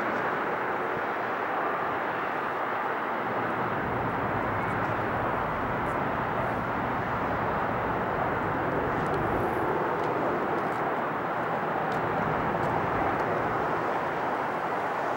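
Jet noise from a Boeing 767 airliner's twin engines on approach to landing: a steady, broad rushing sound. A deeper rumble comes up about four seconds in and eases near the end.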